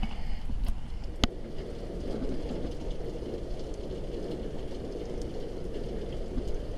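Wind blowing across the microphone as a steady low rumble, with one sharp click about a second in.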